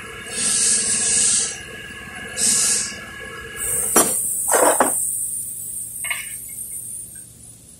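Short bursts of high hissing, like a pressurised nozzle, then a longer hiss that slowly fades. A few sharp metal knocks and clinks come about halfway through.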